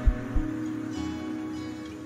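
Background instrumental music with sustained notes and two short low beats near the start.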